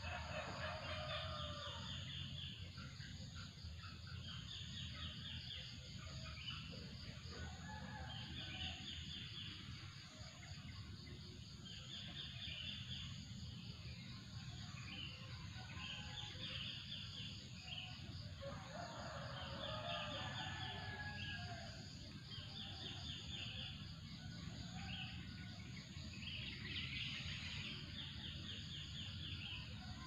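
Morning birdsong: one bird repeats a short, fast trilled phrase every two to four seconds while other birds call at lower pitches and chickens cluck, over a steady low rumble of ambient noise and a thin steady high tone.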